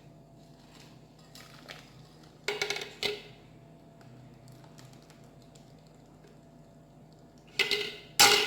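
Kitchenware clinking and knocking as cake batter is poured from a blender jug into a mixing bowl: two short knocks about two and a half seconds in, and two louder ones near the end.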